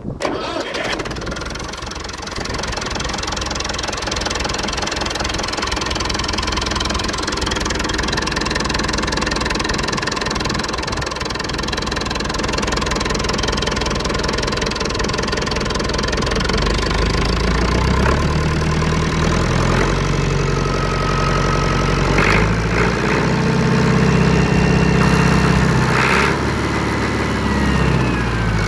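Perkins 4.236 four-cylinder diesel engine running at a steady idle. Through the second half its speed is raised and lowered in steps, with a few sharp clicks near the end.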